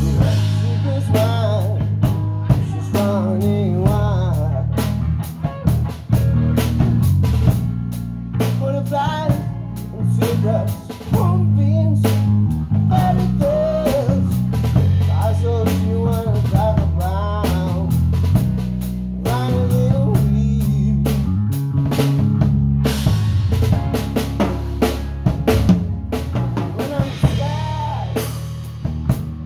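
Live band playing an instrumental passage: drum kit with snare and bass drum keeping a steady beat under a bass line, and a lead melody of bending, wavering notes.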